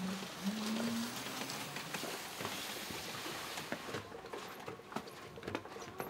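Footsteps crunching in snow, about two a second, over a steady outdoor hiss that eases after about four seconds. A brief low pitched sound comes in the first second or so, and a faint steady tone hangs in the background near the end.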